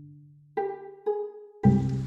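Background music with plucked string notes. A low note fades out, two single plucked notes follow, and the full track with a beat comes back in near the end.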